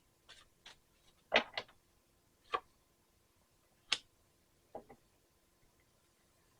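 Tarot cards being handled and laid down on a table: about eight short, separate taps and clicks spread over a few seconds, the loudest about a second and a half in and near four seconds in.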